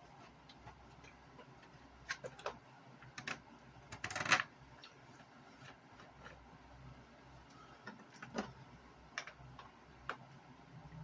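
Scattered light clicks and taps of handling while refuelling a nitro RC truck, with one louder, half-second scraping rustle about four seconds in.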